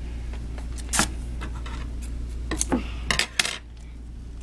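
Scissors cutting folded paper and being handled on a wooden table: a few sharp snips and knocks, one about a second in and a quick cluster around three seconds in.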